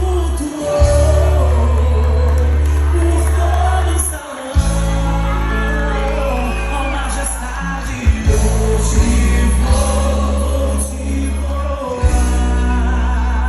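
Music with singing over a heavy, sustained bass line, the bass dropping out briefly a few times.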